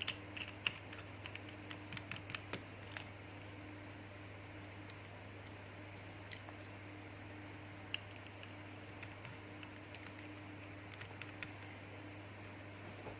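Scattered light clicks and taps of small tools and parts being handled on a phone-repair bench, thickest in the first few seconds and again near the end, over a steady low electrical hum.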